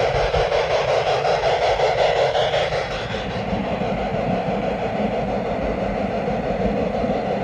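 Small-scale two-truck Shay logging train running on garden-railway track, heard from a camera riding on its cars: a steady rolling and drive noise of wheels on rail. Its pitch shifts lower about three seconds in.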